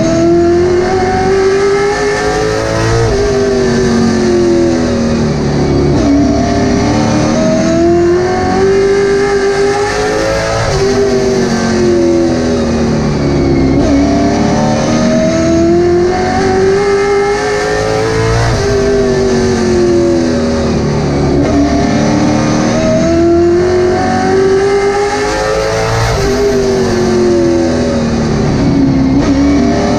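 Late model stock car's V8 engine heard from inside the cockpit under race conditions, its pitch climbing as it accelerates and then dropping sharply every few seconds as the driver lifts for the corners, lap after lap.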